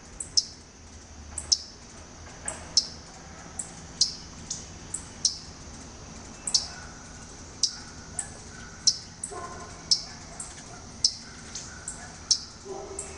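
A small songbird giving sharp, high chip notes, about one a second, each dropping quickly in pitch.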